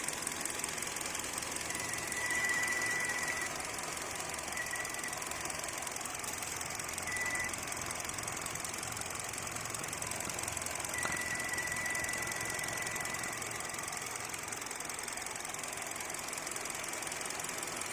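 A new car's engine running steadily, with a thin high-pitched squeal that comes and goes several times over the hum. This is the unexplained engine noise on the new car.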